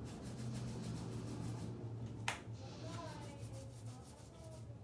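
Stick deodorant being put on: soft rubbing and handling noises with one sharp click about two seconds in, over a steady low hum.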